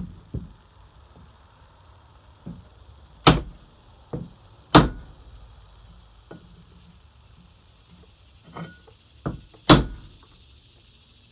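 Hammer blows on a wooden punch, driving the old handle wood out of the eye of a double-bit axe head. There are three hard blows, two of them about a second and a half apart a few seconds in and the third near the end, with lighter taps between.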